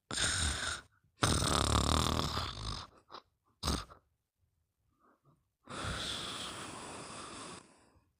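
Snoring: a few loud snore breaths, the longest about a second and a half with a low rattle in it, then a longer, quieter breath near the end.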